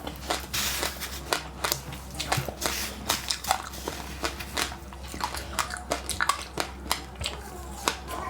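Someone chewing crunchy passionfruit pulp and seeds: a run of irregular, sharp crunches.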